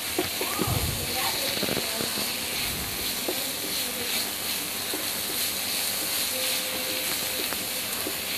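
Chopped onions and ginger-garlic paste sizzling in oil in a non-stick frying pan while a wooden spatula stirs them, with a steady hiss and scattered scrapes of the spatula against the pan.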